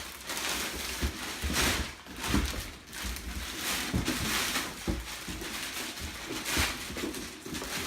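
Rustling and crinkling of packaging as small plastic mounting pieces are handled and unwrapped, with a few short knocks and clicks.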